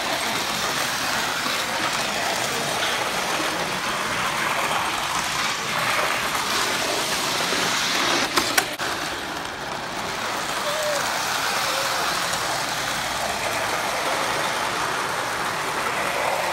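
O scale model locomotives running on three-rail tinplate track, a steady rumble mixed with the chatter of a busy hall. A couple of sharp clacks come about eight seconds in.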